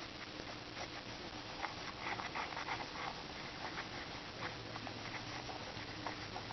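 Faint, scattered soft ticks and scratchy rustles of hands handling a glove and a small dropper bottle while solution is dripped onto the fingertips, over a low steady hiss.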